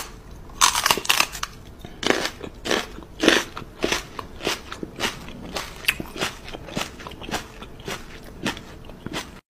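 A man kissing a cat's head over and over: a quick run of wet lip smacks against fur, about three a second.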